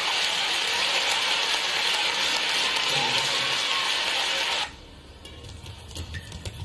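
Dense steady clapping from the hall that cuts off abruptly a little over four seconds in. After the cut there are quieter court sounds with a few sharp clicks of rackets striking the shuttlecock.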